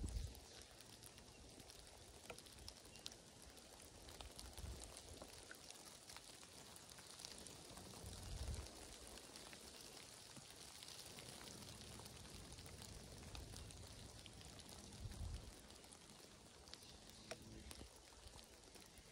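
Light rain falling faintly as a soft, even hiss with scattered drip ticks, broken by a few dull low thumps.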